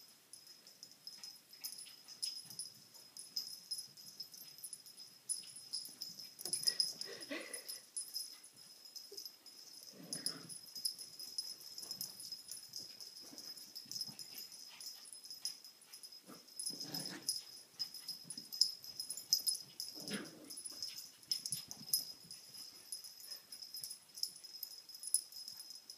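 Small puppy making excited vocal sounds in short bursts, a few of them louder, while it plays with soft toys, over small scattered clicks. A faint steady high-pitched tone runs underneath.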